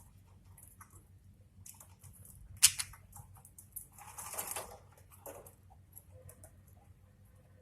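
Budgies pecking and cracking seed: small irregular clicks and taps, with one sharp click a little over two and a half seconds in and a brief rustling scrape around four seconds in.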